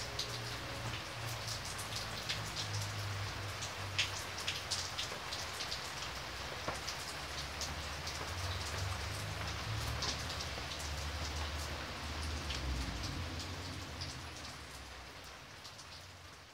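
Steady rain falling, with separate drops heard close by and a low rumble underneath; it fades out near the end.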